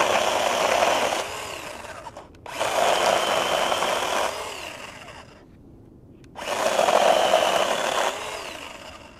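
Craftsman 20V cordless 6-inch pruning chainsaw cutting through a branch about 1.5 to 2 inches thick. Its battery-powered motor and chain run in three bursts, each starting abruptly and winding down over about a second.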